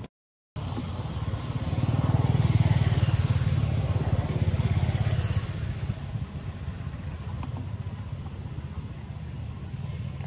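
Motor vehicle engine running, swelling louder from about two to six seconds in as it passes, then settling to a steady lower drone. The sound cuts out briefly for about half a second at the very start.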